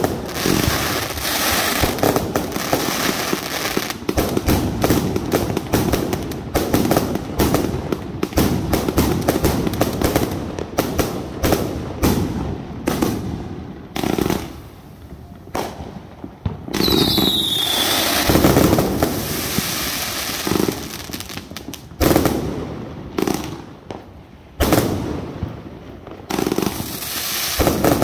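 341-shot consumer firework cake firing a rapid, continuous string of launches and bursting breaks, thinning out briefly twice, with a short whistle about 17 seconds in.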